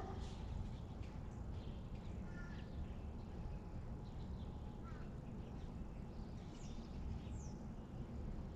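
Outdoor ambience: a steady low background rumble with a few faint, scattered bird chirps, including two brief high chirps falling in pitch near the end.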